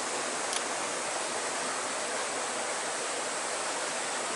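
Steady rush of running water in a creek, an even hiss that does not change, with one faint click about half a second in.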